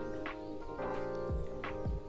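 Background music: sustained chords over a low, steady beat about twice a second.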